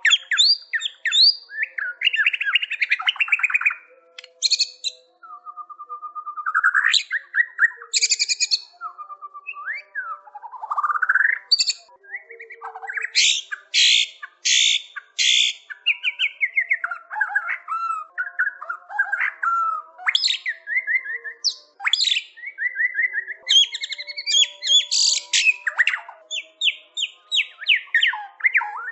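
White-rumped shama (murai batu) in full song: a long, varied run of clear whistles, sliding notes and rapid chattering trills, with only brief pauses between phrases.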